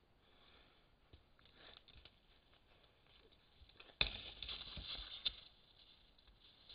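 Mountain lion clawing and pulling at bait fixed to a tree trunk: faint scratching at first, then about four seconds in a sudden loud burst of rustling and scraping lasting over a second, with a sharp snap near its end as the cat lunges and drops away.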